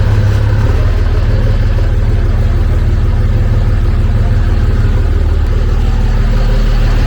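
A vehicle engine running steadily and loud, with a strong low hum and an even pitch throughout.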